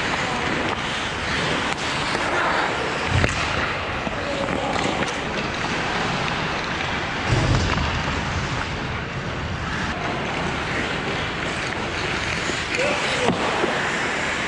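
Ice hockey play on an indoor rink: skate blades scraping and carving on the ice, with two dull thuds of puck, stick or body against the boards or net, about 3 seconds in and again near the middle.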